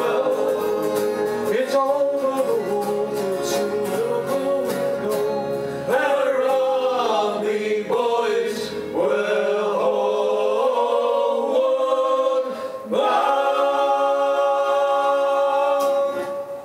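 Male sea shanty group singing in harmony with guitar accompaniment, ending on a long held chord that cuts off abruptly at the very end.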